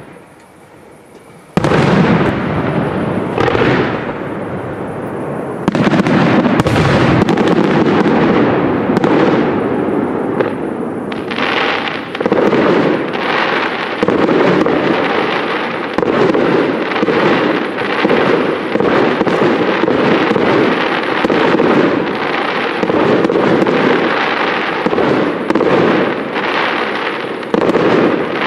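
Fireworks display: after a brief quiet, a dense run of rapid bangs from bursting shells starts about a second and a half in and carries on without let-up.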